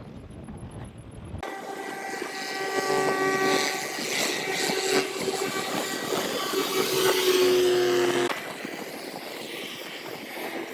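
A machine-like drone: a rushing hiss with a steady whine in several tones, cutting in abruptly about a second and a half in and dropping away about eight seconds in.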